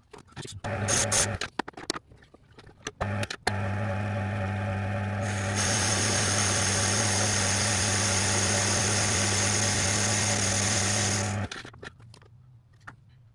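A few seconds of knocking and rubbing as the piston casting is handled in the lathe's three-jaw chuck, then the Myford lathe starts and runs with a steady low hum. About two seconds after it starts, a steady high hiss joins it, and both stop together about eleven seconds in.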